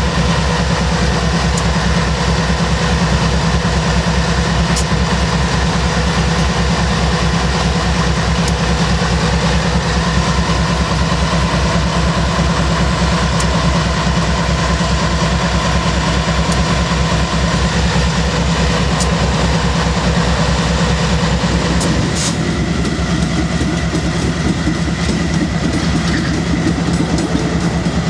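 Union Pacific GE wide-cab diesel locomotives rolling past at a crawl, their engines running with a steady low rumble and even throb, with occasional light wheel clicks on the rails. The tone shifts about three-quarters of the way through as the trailing unit comes by.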